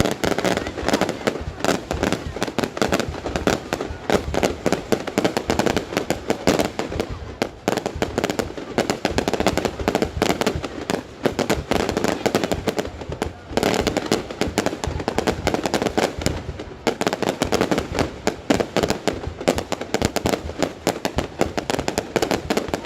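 Fireworks display: a dense, continuous barrage of rapid bangs and crackles.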